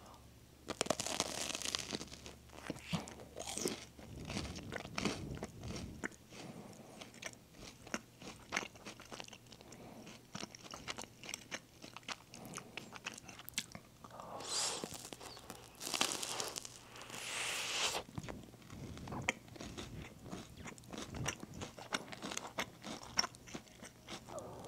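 Biting into and chewing a homemade financier, with louder stretches of chewing about a second in and again about two-thirds of the way through.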